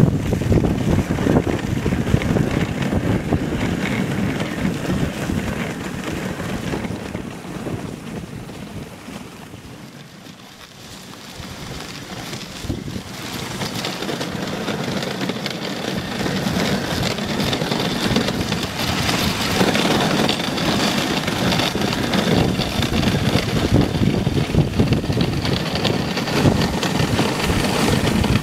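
A dog sled running over snow: a steady rush of the runners on the snow, mixed with wind on the microphone. It fades about ten seconds in and then builds back up.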